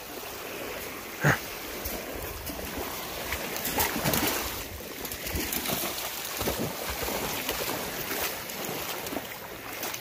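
Wind on the microphone and lake water lapping at the shore, with a dog splashing as it wades into the water in the second half. A short sharp sound about a second in.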